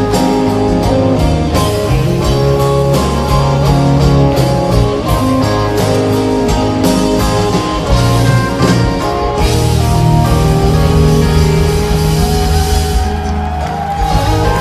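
Live band of electric guitar, pedal steel guitar, bass and drums playing an instrumental passage of a slow rock song without vocals. The cymbal strokes thin out after about nine seconds, and held notes ring on toward the end.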